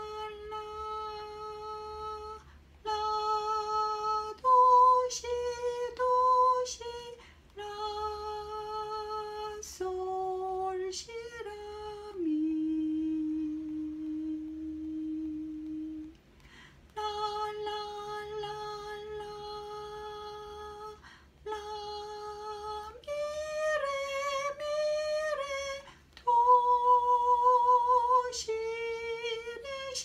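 A woman humming a slow melody in long held notes with a light vibrato, phrase by phrase with short breaks; near the middle one low note is held for about four seconds.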